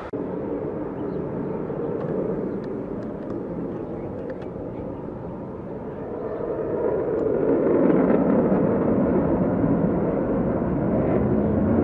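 Twin turbofan engines of a MiG-29 jet fighter climbing steeply after takeoff: a steady, deep jet noise that swells louder about seven seconds in.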